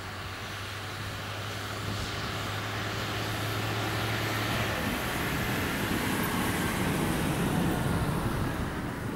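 Sugarcane harvester and haulout tractor working side by side, their diesel engines running with a steady low drone. From about halfway the sound grows louder and rougher.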